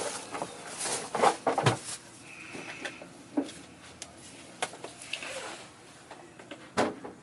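Scattered clicks and knocks of plastic parts being handled, with a brief high tone a little over two seconds in.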